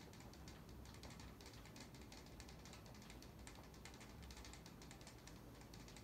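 NuTone Verandah II ceiling fan with a spinner motor running on high, heard faintly, with a light, rapid, irregular ticking over a low hum.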